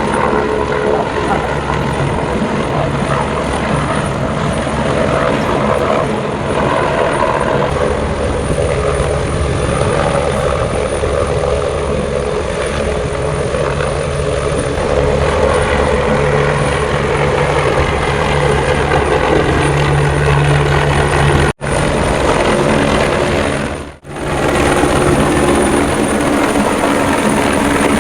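Helicopter running close by: a loud, steady rotor and engine noise with a deep rumble. The sound drops out briefly twice about three quarters of the way through.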